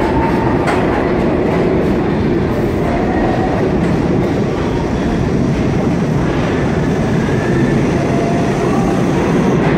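An eight-car R46 subway train pulling into the station: a loud, steady rumble of wheels on rail, with faint thin squeals now and then.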